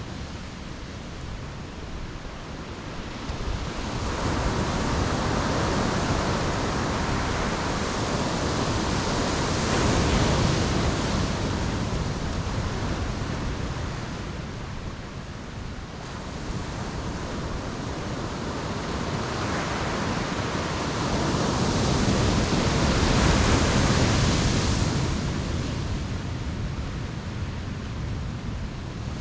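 Sea waves breaking on a beach and washing back, a continuous rushing that swells loudly twice and eases off between.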